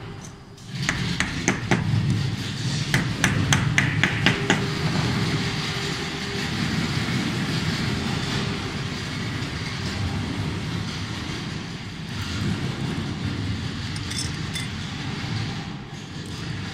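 Wooden mallet tapping black cross connectors into a decorative georgian glazing bar: a quick series of a dozen or so sharp taps in the first few seconds, then a few light clicks near the end, over a steady background noise.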